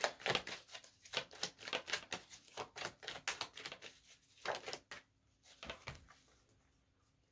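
A deck of tarot cards being shuffled in the hands: quick, soft card snaps at about four a second, thinning out and stopping about five or six seconds in.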